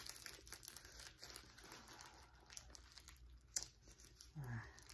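Faint crinkling and rustling as a slit padded envelope and the paper inside it are handled, with a few light clicks. A brief low murmur comes near the end.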